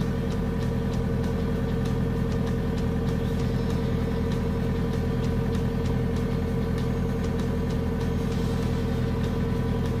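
JCB 3CX backhoe loader's diesel engine running steadily, with a steady tone over the engine note, while its hydraulics hold the machine up on its front bucket and backhoe arm.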